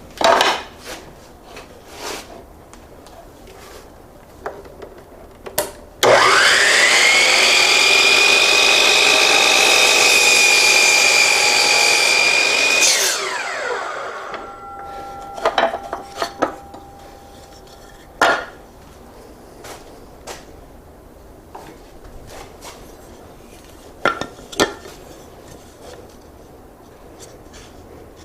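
Hercules miter saw motor switched on with a rising whine, running steadily for about seven seconds through a 45-degree test cut, then switched off and winding down with a falling pitch. Clicks and knocks of the saw and workpiece being handled come before and after.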